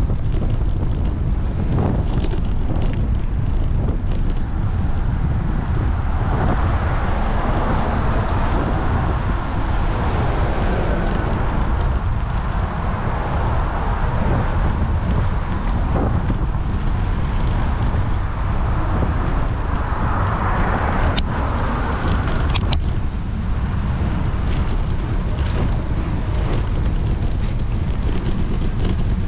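Wind rumbling on the microphone of a moving camera, with road traffic passing close alongside and swelling twice as cars go by. A few sharp clicks about two-thirds of the way through.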